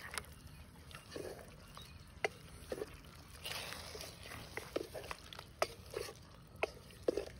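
A spatula stirring chicken curry in an open aluminium pressure cooker: irregular short knocks and scrapes of the spatula against the pot, with soft sounds of the gravy being moved.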